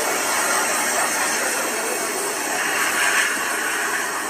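Pet grooming blow dryer blowing air in a steady, even rush.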